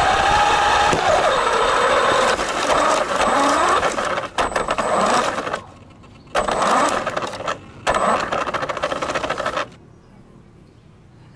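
Remote-control car's electric motor and geared drivetrain whining as it drives over pavement, the whine rising and falling with speed. It cuts out and starts again twice near the middle, then stops near the end.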